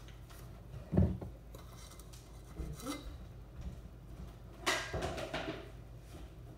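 Metal measuring spoon scooping and scraping in a can of baking powder and levelled off on the can's built-in leveller, with a dull thump about a second in and a louder scrape near five seconds.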